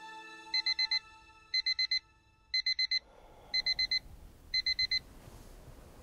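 Digital alarm clock beeping: five quick groups of four short, high beeps, about one group a second, then it stops.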